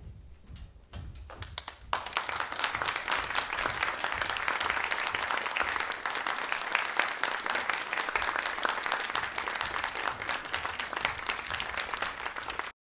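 Audience applauding: a few scattered claps at first, then full applause from about two seconds in that cuts off abruptly near the end.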